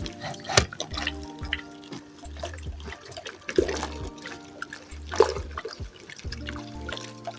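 Water being poured into a bowl of thickening hair conditioner as it is stirred, with splashing liquid and a few sharp knocks, over background music with a repeating bass line.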